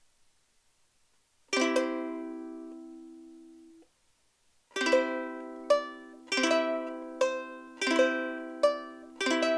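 Martin S-1 soprano ukulele: one chord is strummed and left to ring for about two seconds before it is damped. After a short pause, steady rhythmic strumming of chords begins, a strum roughly every three-quarters of a second.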